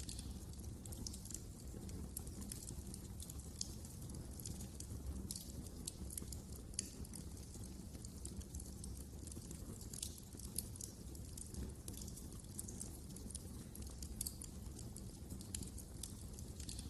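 Wood fire crackling in a fireplace: irregular sharp pops and snaps, several a second, over a low, steady rumble of the burning fire.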